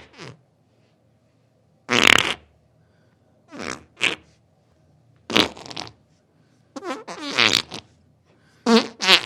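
Diarrhea-style fart sound effects: several short, sputtering bursts of flatulence with pauses between them, some with a wobbling pitch.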